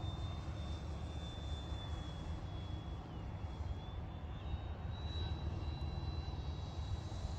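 Electric motor and propeller of an E-flite Draco RC plane whining in flight, a thin high tone that dips and then steps up in pitch about four seconds in as the throttle changes, over a steady low rumble.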